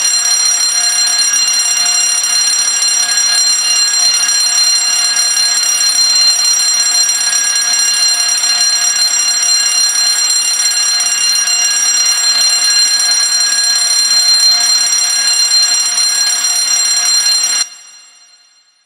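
Fire alarm bell ringing steadily, then cut off suddenly near the end, its ring dying away over about a second.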